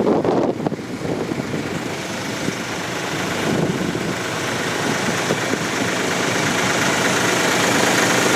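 Canal boat engine running steadily at low revs, getting gradually louder from about two seconds in.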